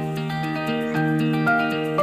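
Instrumental background music, with held notes that change about every half second.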